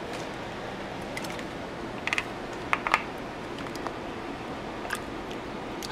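Metal spoon scooping salsa in a stainless steel pot, clinking against the pot a few times, mostly about two to three seconds in, over a steady low hum.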